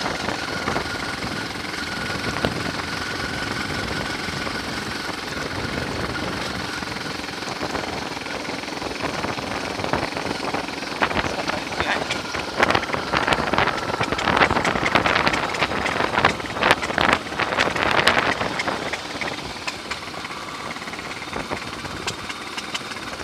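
A big motorcycle's engine running at cruising speed, heard from the saddle with wind rushing over the microphone. From about halfway through comes a stretch of rattling and knocking that rises in loudness and then settles near the end.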